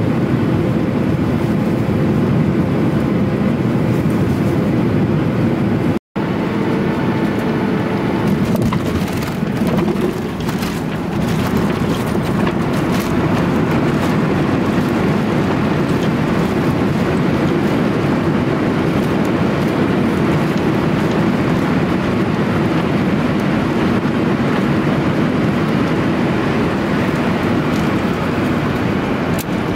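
Cabin noise of a Boeing 737-800 landing, heard from a window seat over the wing: a steady engine and airflow noise that cuts out for a moment about six seconds in. A few seconds later comes a run of rattles and knocks as the aircraft touches down and the spoilers rise, and then the steady noise of the rollout down the runway.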